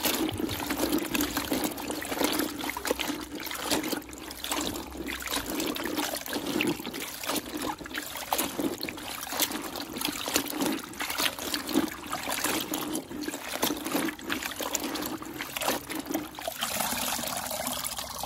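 Water sloshing and trickling in a plastic bucket as gloved hands squeeze and rinse a freshly dyed cloth, wringing the excess dye out in irregular squelches and splashes. Near the end the cloth is lifted and water runs off it more steadily.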